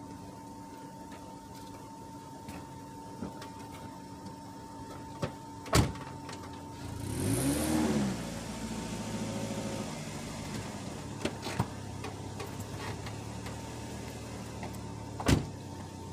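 A car door shuts with a sharp thump, then a car engine starts with a brief flare of revs and settles into a steady idle. Another sharp thump comes near the end.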